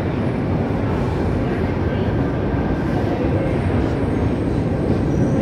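Train running through an underground station platform, a steady low rumble, with people talking indistinctly.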